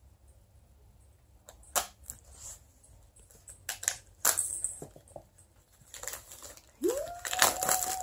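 Packaging being handled and opened: a few sharp knocks and clicks, then from about six seconds in a denser stretch of crinkling and rustling. Near the end a short tone rises and then holds, like a whine.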